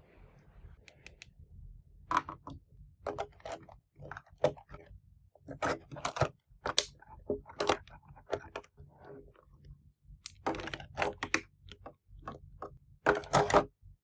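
Hard plastic toy pieces being handled, tapped and set down: irregular clusters of clicks and hollow clacks, the loudest bunched about ten seconds in and near the end.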